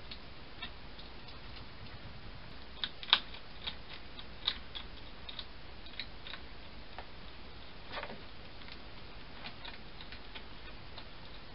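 A hedgehog feeding at a box feeding station: an irregular scatter of short, sharp clicks and crunches, the loudest about three seconds in, over the camera's steady hiss.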